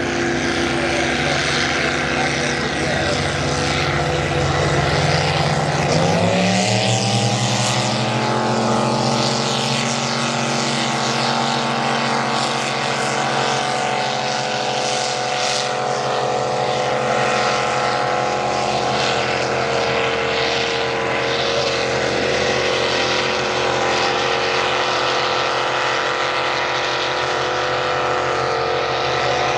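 Engines of two racing boats running hard. Their pitch climbs sharply about six seconds in as they open up to full throttle, then holds steady at high revs.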